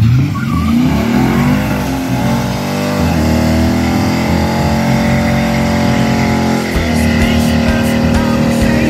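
A 2004 Holden VY Calais's tuned LS1 V8 with headers and a custom exhaust, revved hard and held at high revs through a burnout as the rear tyres spin and smoke. The revs climb over the first second and a half, then dip briefly near three seconds and again near seven seconds before rising again.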